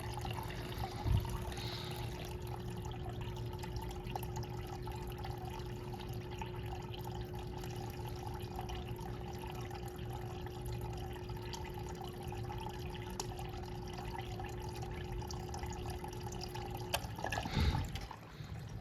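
Small electric water pump running steadily with a constant hum while water flows, then switching off about 17 seconds in, followed by a short burst of noise.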